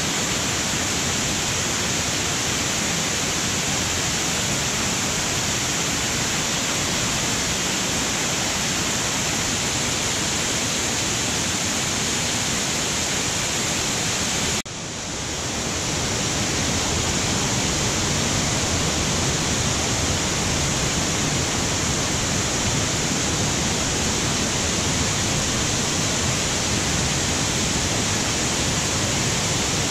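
Kaparkan Falls, a wide multi-tiered cascade, pouring down its terraces: a steady, loud rush of falling water. About halfway through the sound cuts sharply lower, then swells back up over a second or two.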